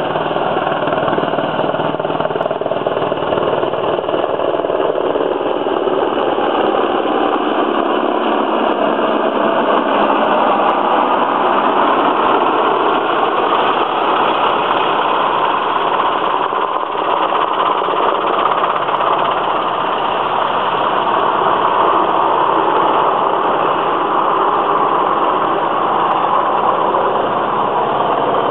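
Rescue helicopter flying low overhead: steady, loud rotor and turbine noise.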